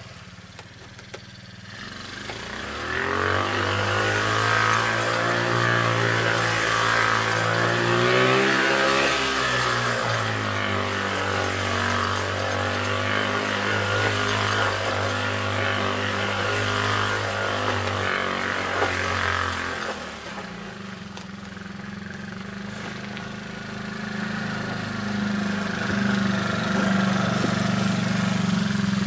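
Small youth ATV engine running as the quad is ridden, picking up speed about three seconds in and then holding steady. It eases off around twenty seconds and picks up again near the end.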